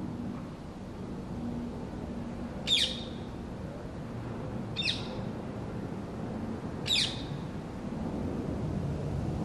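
A bird calling three times, about two seconds apart; each call is short and sharp and drops steeply in pitch. A steady low hum of background noise runs underneath.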